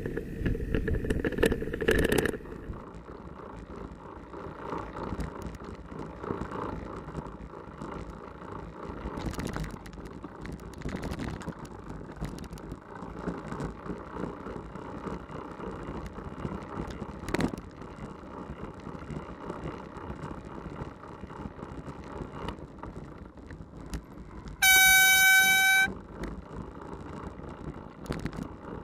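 A horn sounding one loud, single-note blast of about a second near the end, over steady road traffic and wind noise from riding a bicycle along a street.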